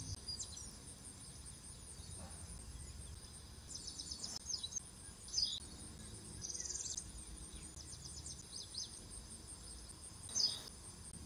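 Faint birdsong and insect chirping: scattered short bird chirps over a steady, high insect trill.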